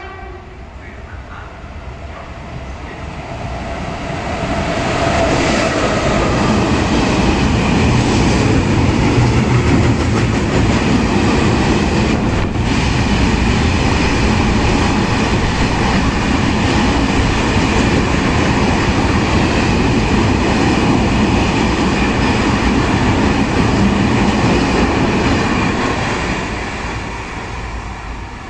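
Freight train of open high-sided wagons passing through at speed on the adjacent track, with wheels clattering over the rails. It builds over the first few seconds as the train arrives, holds steady while the wagons run past, and fades near the end.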